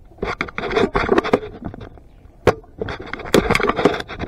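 Dry brush and twigs crackling and scraping against a player and his gear in two stretches, with one sharp snap about two and a half seconds in.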